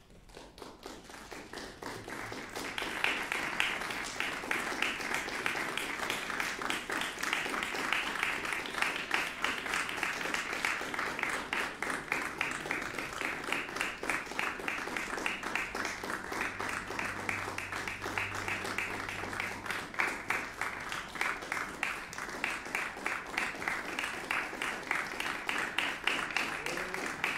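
Audience applauding, swelling over the first few seconds and then holding steady.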